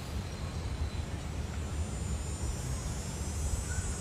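Outdoor background at a lakeside marina: a steady low rumble with no clear tones or strikes.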